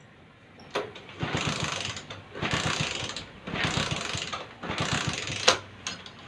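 Motorcycle being kick-started, about four kicks roughly a second apart, each turning the engine over without it firing: the ignition is cut by a remote-controlled immobilizer. A sharp knock near the end.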